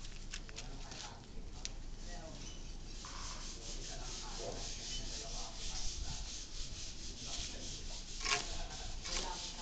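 Rough scraping and rubbing of a stone tomb plaque and hands on wet cement mortar as the plaque is pressed and worked into place: many short, repeated scraping strokes, one louder about eight seconds in.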